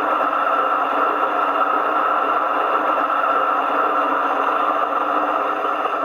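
Diesel engine idling sound from the DCC sound module of a Piko V36 G-scale model diesel locomotive, steady and even, played through the model's small built-in loudspeaker so it has little bass.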